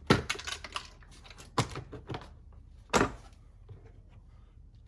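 Plastic dash trim panel of a Jeep Grand Cherokee WK2 being pried off, its retaining clips popping loose in a series of sharp snaps and clicks, the loudest right at the start and about three seconds in.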